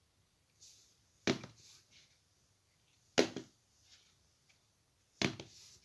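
A glue stick being flipped onto a carpeted floor three times, about two seconds apart: each landing is a sharp knock followed by a short, softer rattle.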